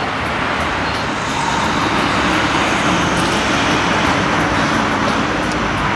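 Steady road traffic noise: an even rushing sound with a faint low hum coming in about two seconds in.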